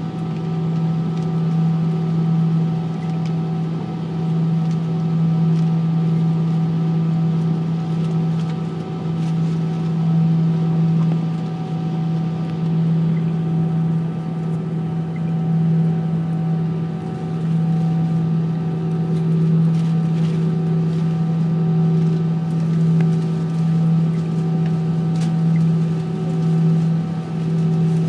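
Airbus A319 cabin noise during taxi: the jet engines at idle give a steady low drone that slowly wavers in strength, over a hiss of air, with a few faint ticks.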